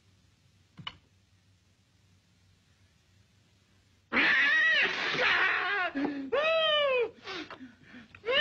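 A cat yowls and meows loudly several times, each call arching up and down in pitch. Before it there are a few seconds of near quiet with one faint click.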